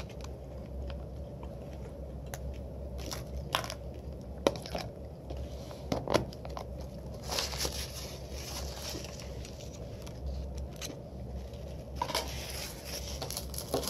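A person chewing food close to the microphone, with scattered crunches and short clicks.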